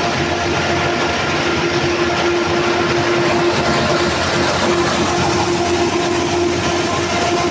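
Perkins 1300-series diesel engine running steadily and loudly, a dense clatter with a steady whine in it.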